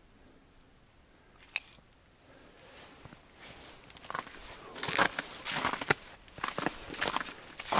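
Footsteps crunching and rustling through dry fallen leaves, starting about three seconds in and growing louder and closer, after a single sharp click.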